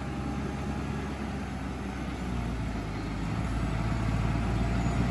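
A vehicle engine running with a steady low hum, growing a little louder from about three seconds in.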